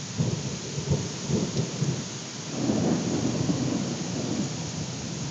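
Steady rain falling with a constant hiss, and thunder rumbling low under it: a roll starting just after the start and a stronger, longer swell about two and a half seconds in.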